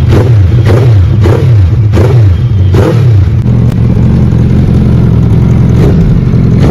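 Suzuki Hayabusa GSX1300R inline-four engine given a string of quick throttle blips in the first three seconds, each rev rising and falling back, then idling steadily, with one more blip near the end. The exhaust leaves through a silencer tube held loosely by hand against the header outlet.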